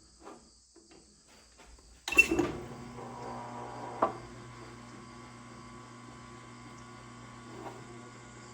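A Tormek water-cooled sharpener's electric motor starts about two seconds in with a sharp onset, then runs with a steady mains-type hum as the grindstone turns. There is one sharp knock about two seconds after the start.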